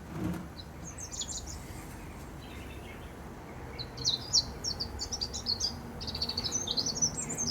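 A small bird singing: a short burst of high chirps about a second in, then a long run of quick, high twittering notes from about four seconds in to the end.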